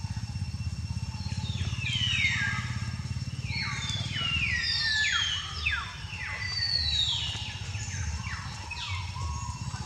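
A rapid series of high animal calls, each sliding steeply down in pitch, starting about a second in and overlapping one another until near the end, over a low steady rumble.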